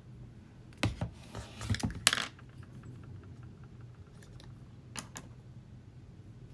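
Small hard makeup items being handled and set down: a quick run of clicks and clatter about a second in, then two more clicks near the middle, over a low steady hum.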